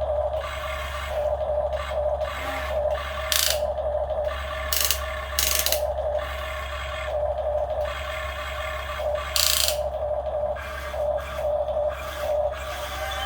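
Radio-controlled model excavator's small electric motors and gearboxes whining in short, uneven bursts as its arm and tracks are worked, with a few brief hissing bursts and a steady low hum underneath.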